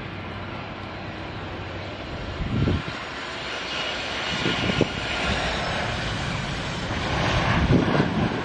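Boeing 737 airliner's jet engines on final approach and flare: a steady rush with a high whine, growing louder as the plane comes closer. There are a couple of brief low buffeting gusts about a third and just over halfway in.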